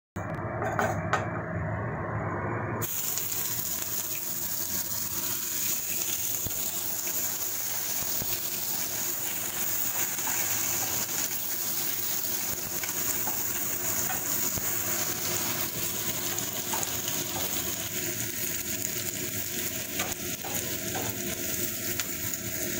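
Ginger-garlic paste frying in hot refined oil in a pan: a steady sizzle that turns bright and full about three seconds in.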